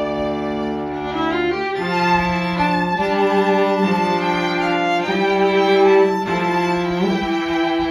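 String trio of two violins and a cello playing an arrangement of a pop song: long bowed notes over a held cello line, the chords changing every second or so.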